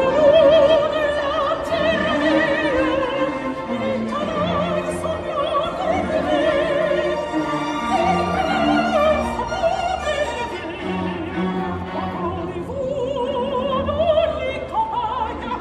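An operatic singer with a strong vibrato, accompanied by a live symphony orchestra with bowed strings, heard at an open-air concert.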